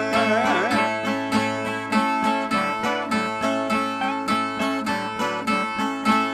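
Ten-string Northeastern Brazilian violas strummed in a steady, rhythmic instrumental interlude, about three strokes a second, the viola break played between sung stanzas of a repente. A sung note trails off within the first second.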